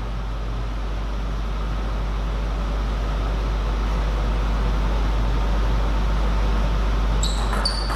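Steady deep hum with a hiss over it, the hall's background noise with no rally in play. Near the end come a few quick clicks of a table tennis ball bouncing.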